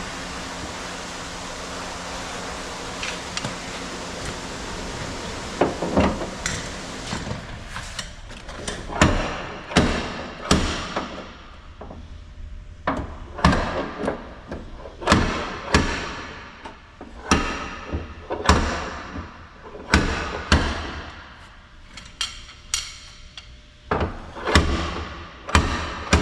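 A steady hiss, then from about six seconds in a long irregular run of sharp knocks and clanks, roughly one a second, as parts and trim are worked loose from a car body by hand and with tools.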